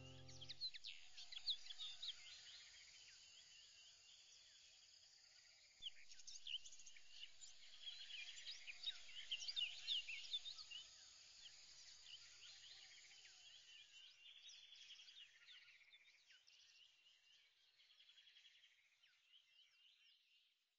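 Faint bird chirps and twitters, many short quick calls over a soft hiss, busiest a third of the way in and thinning out toward the end. A held music chord cuts off about half a second in.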